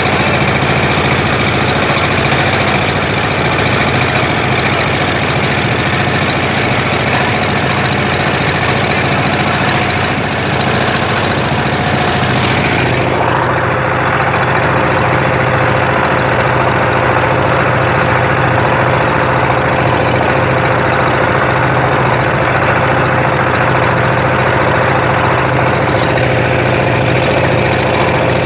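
A boat's engine running steadily under way, with the rush of water along the hull. About halfway through the high hiss drops and a steady higher tone joins the engine note.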